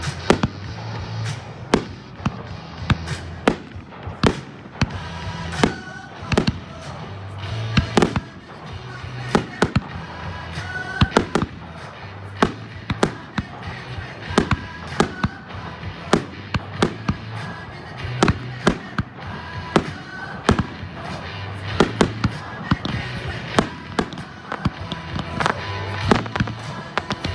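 Fireworks display: a rapid, irregular barrage of aerial shell bursts and cracks, several a second at times, over music with a steady repeating bass beat.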